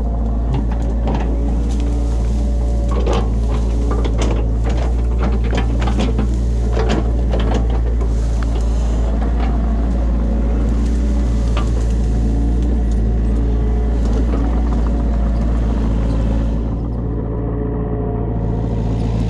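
New Holland Kobelco E50.2SR mini excavator's diesel engine running steadily, with a rapid run of sharp cracks and clicks through the first half as the machine works through brush and branches. The higher hiss drops away a few seconds before the end.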